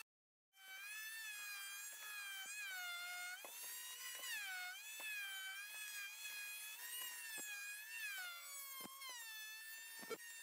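A high-speed power carving tool whining as it cuts wood, its pitch dipping and recovering as the bit bites in and eases off, with short ticks scattered through it.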